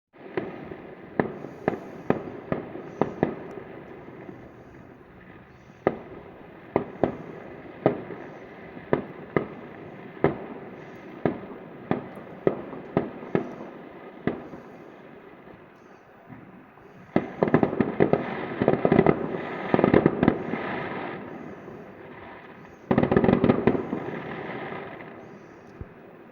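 Fireworks going off: a string of single sharp bangs every half-second to a second, then two louder volleys of rapid crackling bangs, one about two-thirds of the way in and another near the end.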